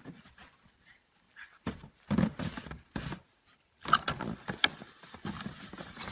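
Snow crunching underfoot and a plastic sled scraping over it, in irregular bursts with a few sharp knocks among them.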